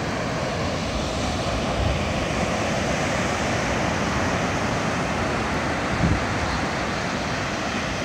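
Steady wash of ocean surf breaking on a sandy beach, with some wind on the microphone.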